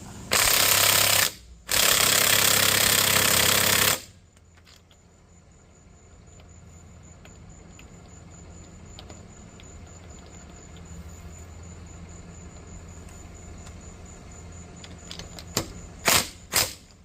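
Impact wrench running in two bursts, one of about a second and one of about two seconds, loosening 19 mm wheel lug nuts, then three short bursts near the end.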